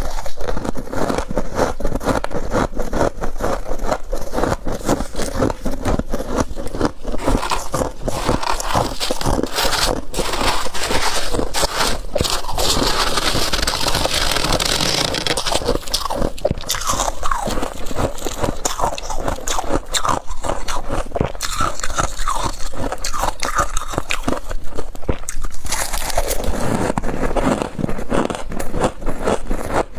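Close-miked biting and chewing of humidifier frost chunks, a dense, unbroken run of crunches with scraping as the frost is handled.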